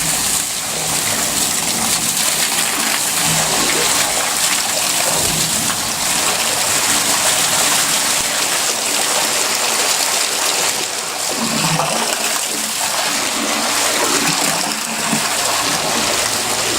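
Pumped water pouring and splashing steadily against the base of a closed garage door as the space in front of it fills.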